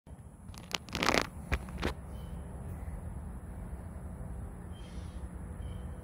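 Outdoor ambience: a steady low rumble, with a cluster of short sharp rustling clicks about a second in and a few faint high chirps later.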